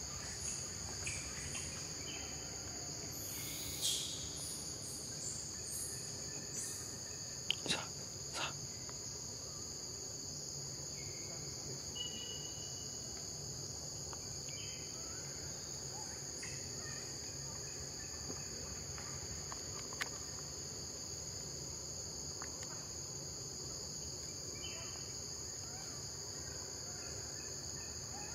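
Steady high-pitched drone of forest insects in two close bands. A few brief sharp chirps or clicks cut in about four and eight seconds in.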